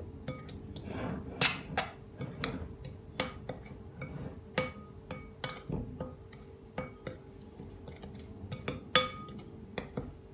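Metal spoon stirring powdered ingredients in a glass mixing bowl, clinking irregularly against the glass with soft scraping in between.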